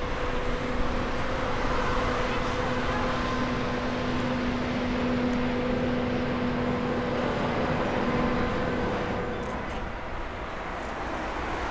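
Boeing 777-300ER's twin GE90-115B turbofans at takeoff thrust: a steady jet roar with a droning tone through rotation and lift-off. The drone fades after about nine seconds as the aircraft climbs away.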